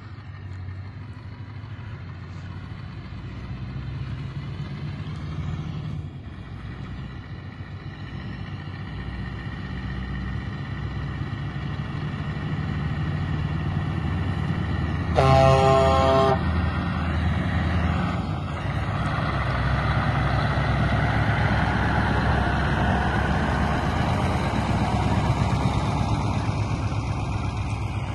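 Scania R500 truck's V8 diesel engine pulling a loaded low-loader, growing louder as it approaches and passes close by. About halfway through, the truck's horn sounds once for about a second.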